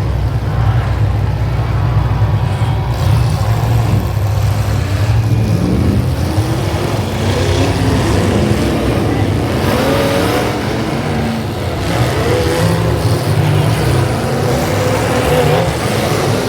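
Demolition derby cars' engines running loud together, with engines revving up and down from about five seconds in.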